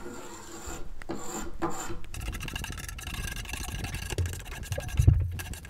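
A hand edge tool shaving wood in light strokes along the edge of a wooden chair back splat, cutting a roundover: a rough scraping rasp, with one long stroke from about two seconds in and a short knock near the end.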